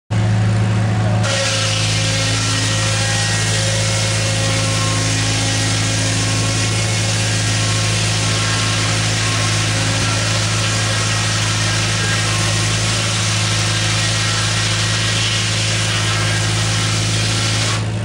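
Belt-driven sawmill blade cutting steadily through a log from about a second in until just before the end, powered by a Farmall H tractor's four-cylinder engine running under load with a steady low hum underneath.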